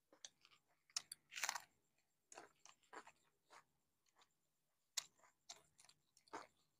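Faint eating sounds: chewing of fried chops and fingers working rice on steel plates, in short scattered clicks and rustles, the loudest about a second and a half in.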